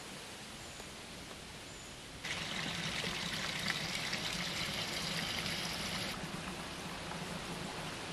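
Shallow water trickling and splashing over stones. It cuts in suddenly about two seconds in and stops just as suddenly about six seconds in, over a steady faint hiss.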